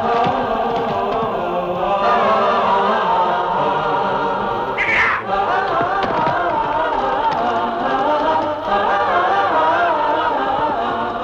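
Film score of choral singing: several voices with vibrato hold and move between notes at a steady level. A brief high-pitched sound cuts across the singing about five seconds in.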